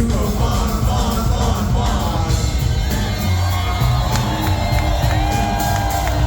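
Rock band playing live in a large hall, with heavy bass and drums, and the crowd shouting and cheering over the music.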